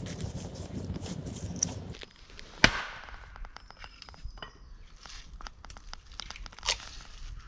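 An axe splitting firewood on a chopping block: one sharp, loud chop a little after two seconds in, then lighter knocks and the clatter of split pieces, and a second chop near the end. Before that comes a couple of seconds of low rumbling handling noise around a kindling fire.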